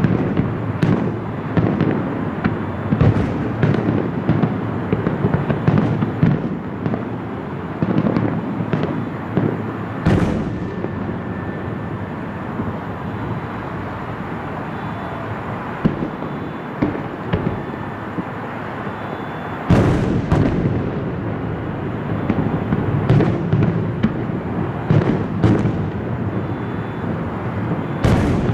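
Aerial firework shells bursting in a dense, rapid barrage of bangs and crackle. A loud single report comes about a third of the way in, then a thinner stretch of scattered pops, then another loud bang about two-thirds through that sets off a fresh flurry, and one more loud report right at the end.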